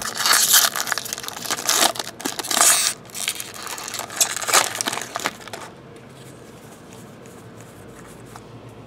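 Foil trading-card pack wrappers crinkling as they are torn open and crumpled by hand, in loud bursts over the first five and a half seconds, then much quieter.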